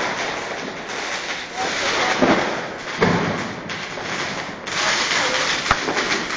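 Many New Year's fireworks and firecrackers going off around a city street in a dense, continuous din, with heavier booms about two and three seconds in and a sharp crack near the end.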